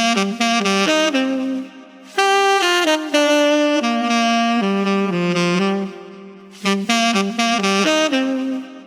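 Saxophone played solo, running through quick melodic phrases of many short notes, with brief pauses between phrases about two and six seconds in.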